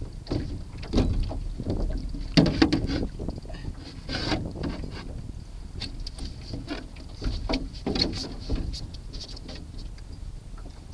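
Canoe paddle strokes splashing in the water at an irregular pace, over a low rumble of wind on the microphone.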